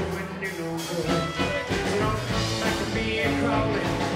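Rockabilly band playing live: a man singing over strummed acoustic guitar, upright bass and a drum kit with a steady beat.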